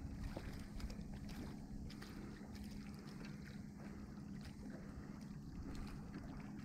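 Small boat's engine idling with a steady low hum, with light ticks and knocks of fishing gear being handled.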